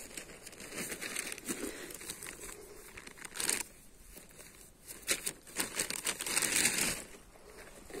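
Footsteps crunching on a gravelly dirt track, with crackly rustling that gets louder briefly in the middle and again for a couple of seconds in the second half.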